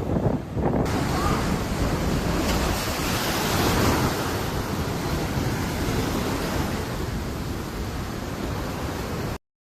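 Heavy storm surf breaking, with strong wind buffeting the microphone; the sound cuts off suddenly near the end.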